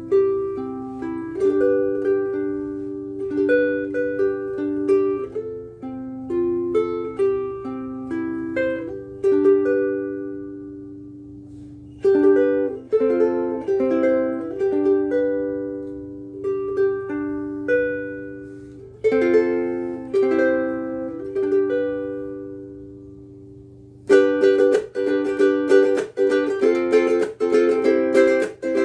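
Ko'olau C100 koa concert ukulele played solo: a melody of plucked notes and chords, with phrases left to ring and fade. Near the end the playing turns quicker and busier.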